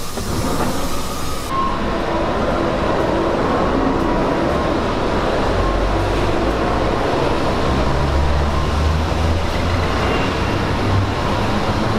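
Shanghai maglev train running past: a steady rushing noise with a low hum that swells in the second half.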